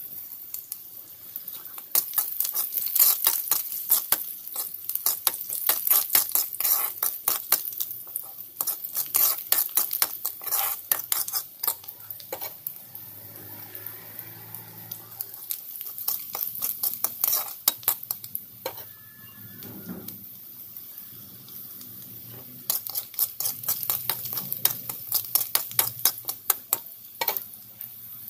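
Steel spoon stirring and scraping in a hot aluminium pan, making rapid metal clinks over a faint sizzle of chopped pieces frying in oil: the tempering for the dal. The stirring stops for several seconds in the middle, then clinks again near the end.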